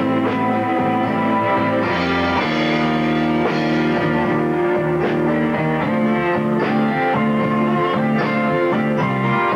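Rock band playing live: electric guitar over sustained keyboard chords and drums, with a steady beat.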